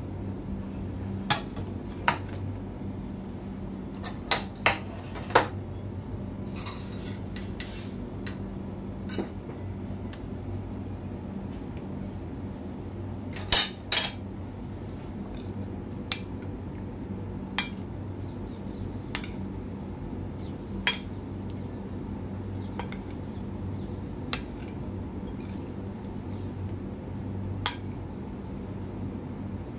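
Metal fork and spoon clinking and tapping against a ceramic bowl in scattered sharp knocks, the loudest a double knock about 14 seconds in, over a steady low hum.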